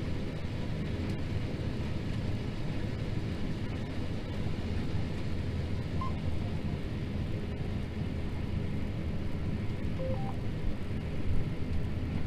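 John Deere T670i combine harvester running steadily under load while cutting barley, a constant low engine and threshing drone heard from the cab.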